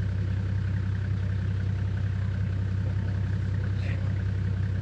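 Four-wheel-drive's engine running steadily at low revs, a constant low hum.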